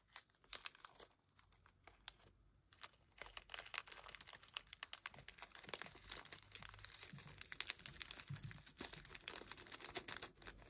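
Faint plastic crinkling with a quick patter of tiny clicks as sprinkles are opened and poured out. The clicks are sparse at first and come thick and fast from about three seconds in.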